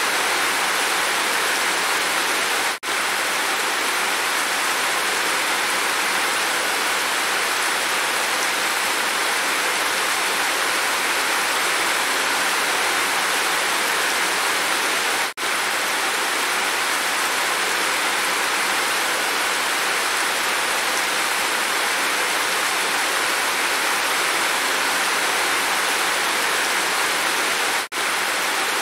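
Steady heavy rain, with water pouring off a roof edge and splashing. The sound cuts out for an instant three times.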